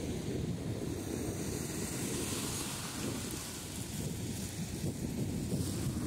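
Wind buffeting the microphone in a steady low rumble, with a higher hiss over it that swells about two seconds in.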